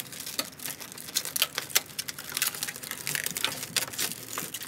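Irregular small clicks, taps and rustling as hands work behind a car's front bumper beam, handling a plastic block-off plate and its nuts, bolts and washers.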